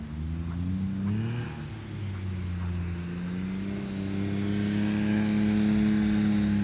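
Engine of a small side-by-side utility vehicle driving, its pitch rising and dipping about a second in, then climbing and holding steady as it grows louder.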